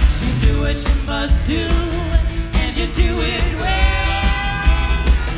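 A woman sings lead over a live band, with a steady bass beat underneath. About two-thirds of the way through she holds one long note.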